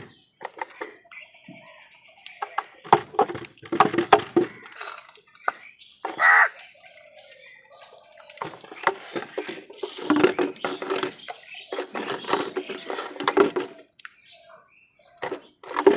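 Crows cawing harshly and squabbling, in irregular clusters with short clattering strokes between calls; one loud drawn-out caw about six seconds in, and a dense run of calls in the second half.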